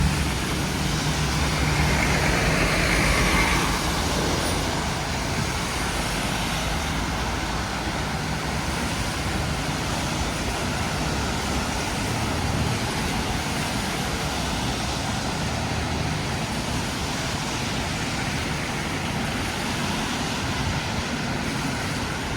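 Steady hiss of rain and tyres on a wet city street, with a motor vehicle's engine running close by at the start and fading away within the first few seconds.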